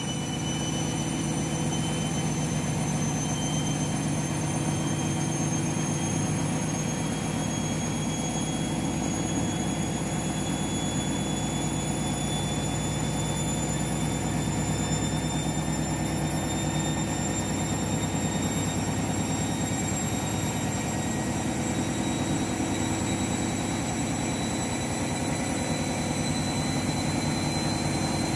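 Washing machine with an overloaded drum in its final spin: a steady motor drone and drum rumble, with a high motor whine rising slowly as the spin speed climbs.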